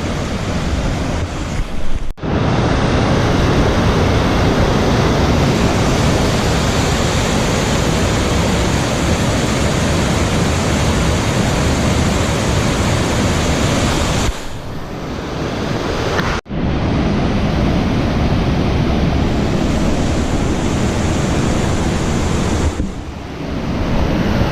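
Steady, loud rushing of a rain-swollen creek pouring over a waterfall and rapids. The sound breaks off abruptly about two seconds in and again about two-thirds of the way through, then resumes.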